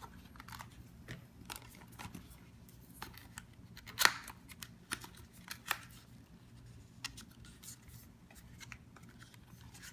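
Hands working at a cardboard game box and its packaging: scattered light clicks and rustles, with a sharper click about four seconds in.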